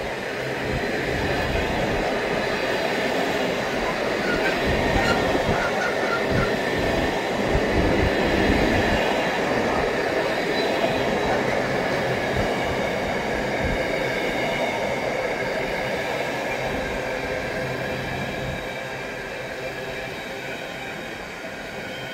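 Empty container flat wagons of a freight train rolling past on the line: a steady rumble and rattle of wheels on rail with a thin, steady high whine over it, louder in the middle and easing off near the end.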